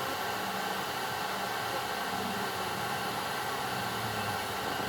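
Laser engraving machine running, its fans giving a steady hum with faint high tones over it.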